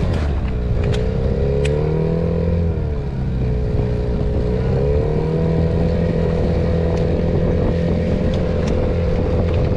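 Gasoline outboard motor pushing a small inflatable boat along at cruising speed. Its pitch dips briefly about three seconds in and rises back around five seconds, then holds steady.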